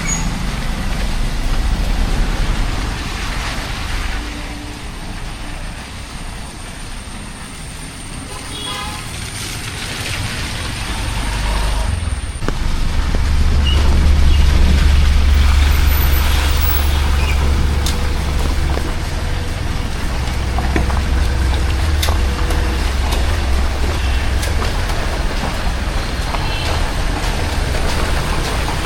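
Road traffic passing, with a vehicle's engine rumbling low and loud as it goes by a little before halfway, then a steadier traffic sound.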